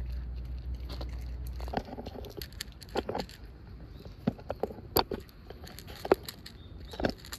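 Black-and-white cat crunching dry kibble from a plate: a string of irregular sharp crunches and clicks. A steady low rumble during the first two seconds stops suddenly.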